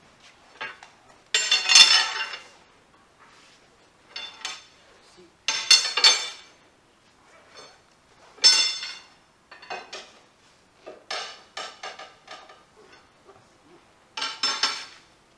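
Metallic clanking and rattling from a Fiat Ducato camper van's front wheel and suspension as it is worked for play in the joints and wheel bearings, coming in repeated bursts a second or so long with quieter knocks between.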